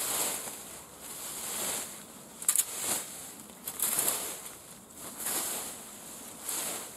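Leaf rake dragged through dry fallen leaves in repeated strokes, a rustling scrape about every second and a quarter. A couple of sharp clicks come about two and a half seconds in.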